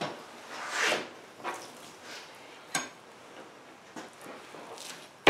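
Clear plastic wrap crinkling and a deer hind quarter being shifted by hand on a plastic cutting board, with a sharp tap a little past the middle. The loudest rustle comes about a second in.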